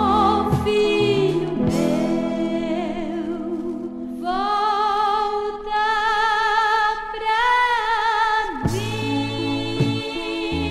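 Gospel song: a female lead voice holding long notes with vibrato over band accompaniment, the bass dropping out in the middle while one note is held for about four seconds.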